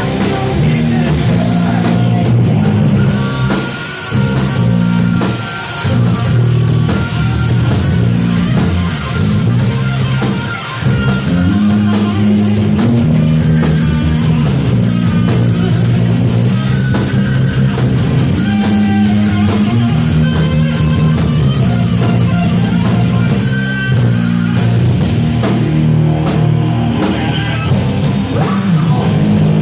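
Loud rock music played by a band: distorted electric guitar, a stepping bass line and a drum kit, steady throughout.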